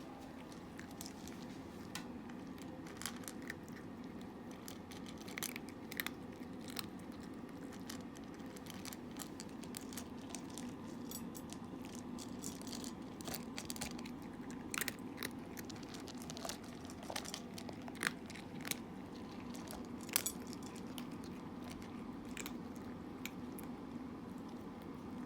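A cat eating, with irregular crunches and clicks of chewing, some louder than others, over a steady low background hum.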